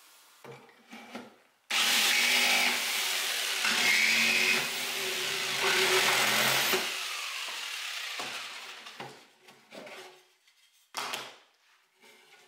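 An electric power tool working on wood starts suddenly about two seconds in, runs for about five seconds and winds down, followed by a few separate knocks.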